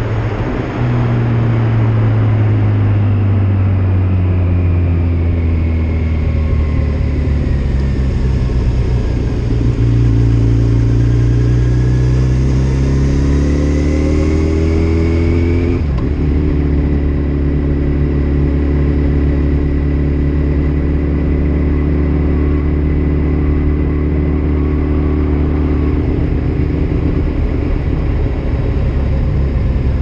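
Sport motorcycle engine heard from a helmet chin-mounted camera while riding, mixed with wind noise on the microphone. The engine note sinks over the first several seconds and then climbs again. A short break in the note comes about halfway through, after which it holds a steady cruising pitch.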